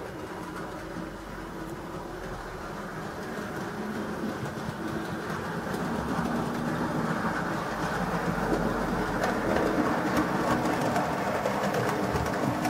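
A model railway locomotive hauling a log wagon along the track: a steady running whirr with fine clicking from the wheels on the rails, growing louder as it comes closer.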